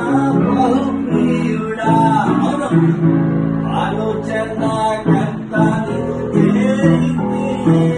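Acoustic guitar strumming chords in a worship song, with held melody notes over it.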